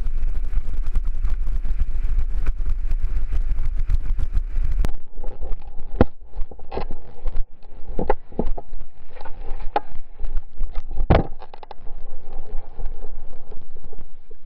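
Mountain bike running fast down a loose gravel trail, wind rushing over the helmet camera and the tyres and frame rattling. About five seconds in the sound changes abruptly, and a series of sharp knocks and clatters follows as the bike and rider crash and slide on the gravel, the loudest hit near the end.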